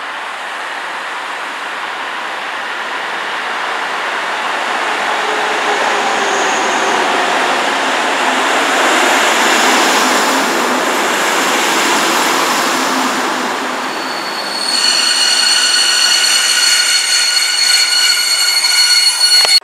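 Passenger train passing directly underneath: a rushing rumble builds as the locomotive approaches and passes below, with falling tones as it goes by. The coaches then roll past, and about three-quarters of the way in a high, many-toned metallic squeal sets in. The sound cuts off abruptly at the end.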